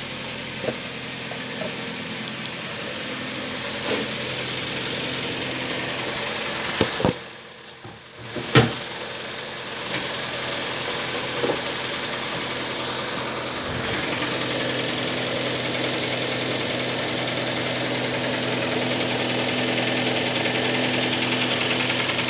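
Kia Sportage III engine idling cold, with a knock from the engine at cold start. About seven seconds in, the sound drops away briefly and comes back with a sharp thump.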